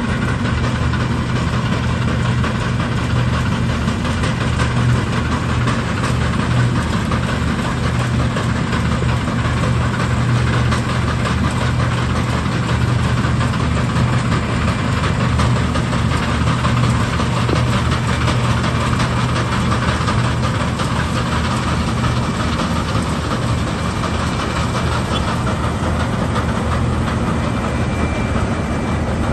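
New Holland CX7090 combine harvester running steadily while cutting a standing cereal crop: a constant diesel engine hum mixed with the noise of its header and threshing machinery.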